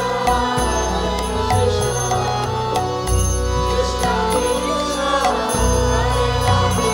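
Indian devotional background music: a sustained melody over a continuous deep drone.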